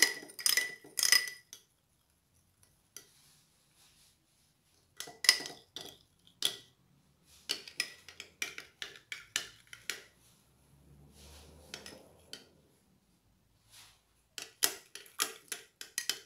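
Metal spoon stirring liquid in a glass jar, clinking against the glass in several bursts of quick taps with pauses between.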